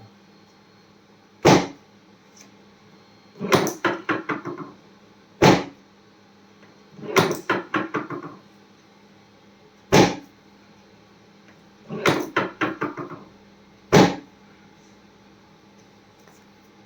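A regular run of percussive strikes during chiropractic treatment: a single sharp thump about every four seconds, alternating with quick bursts of six or so rapid knocks.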